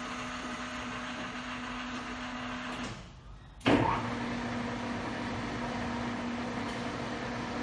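LeBlond Regal 19 x 78 engine lathe running its spindle at about 109 RPM, a steady machine hum. About three seconds in it drops away briefly, then starts again with a sudden thump and runs steadily on.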